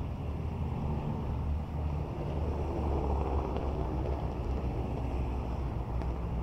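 Steady low engine hum of heavy construction machinery running, with wind rumbling on the microphone.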